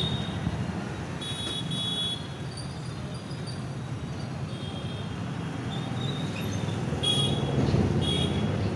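Street traffic noise, a steady rumble, with a few short high-pitched beeps near the start, about a second and a half in and again near the end.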